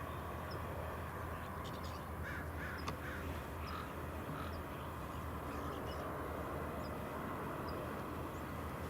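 Crows cawing at a distance, a few short faint calls about two to five seconds in, over a steady low rumble.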